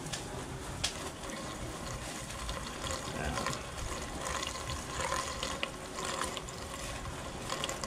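Unleaded gasoline pouring from a container through a plastic funnel into a portable generator's fuel tank, a steady splashing pour with small ticks.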